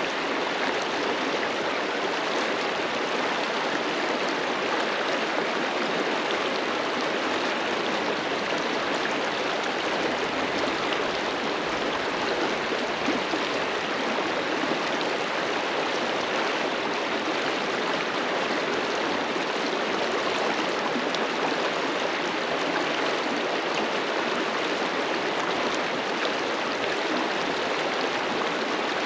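A river rushing steadily over rocks: a constant, even rush of water.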